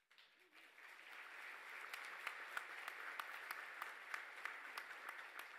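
Audience applauding, swelling over the first second or two into steady clapping.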